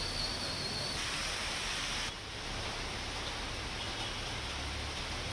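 Heavy rain falling steadily on a road, a continuous hiss with a low rumble underneath; it drops slightly in level about two seconds in.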